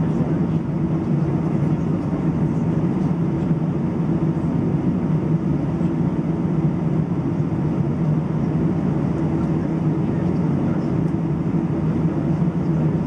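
Steady low drone inside the cabin of an Airbus A319 on the ground, its jet engines at idle with the cabin air system running. The level holds even, with no spool-up for takeoff.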